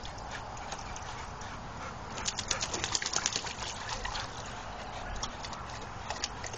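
Water splashing in a plastic wading pool as two dogs stand, move and drink in it, with a busy run of quick splashes about two seconds in and a few more near the end.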